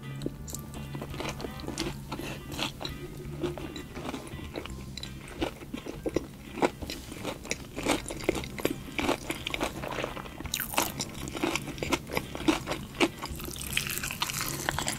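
Close-miked eating of a piece of chicken on the bone: biting, tearing the meat off the bone and chewing, with many short, sharp crunchy clicks and wet mouth sounds throughout.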